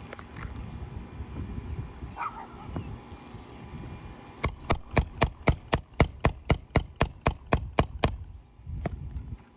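Roofing hammer tapping a nail puller in a quick, even run of about sixteen sharp metal strikes, then one more, working a roofing nail loose from under a shingle.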